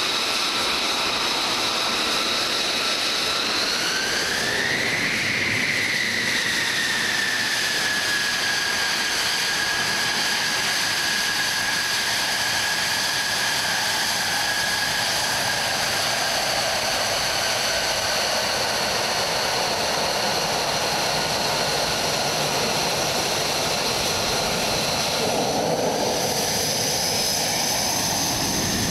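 Dutch F-35A Lightning II's Pratt & Whitney F135 turbofan running on the ground: a steady high whine of several tones over a rushing noise. About four seconds in the whine climbs in pitch as the engine spools up, then eases back and holds steady. Near the end the tones change abruptly.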